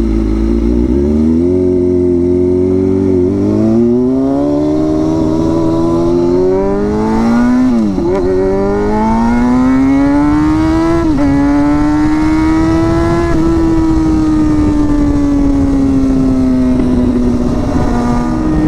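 Kawasaki ZX-6R inline-four motorcycle on a straight-pipe exhaust with no muffler, very loud, accelerating hard through the gears. The engine pitch climbs, dips at each of three upshifts about 3, 8 and 11 seconds in, then falls off slowly as the throttle eases.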